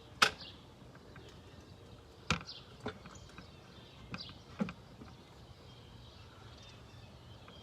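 Quiet outdoor morning ambience: a few short, faint bird chirps and sharp clicks over a low steady hum.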